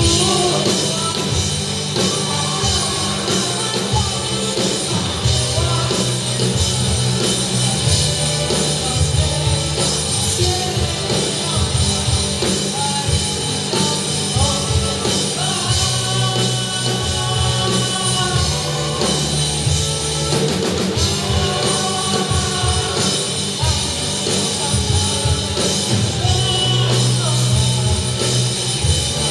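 A rock band playing live, with a sung lead vocal over a drum kit and amplified instruments, in a large hall.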